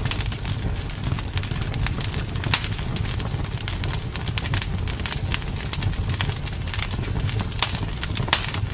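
Fireplace fire crackling: frequent small irregular pops and snaps over a steady low rumble, with a few louder pops about two and a half seconds in and near the end.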